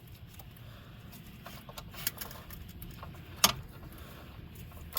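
Light metal clicks of hand tools working on bolts at a car's rear brake assembly, with one sharp clink about three and a half seconds in.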